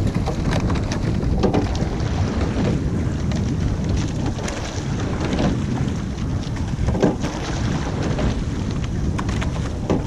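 Wind buffeting the microphone over the rush of water along a sculling boat. A short knock from the oars in their oarlocks recurs about every three seconds with the rowing stroke.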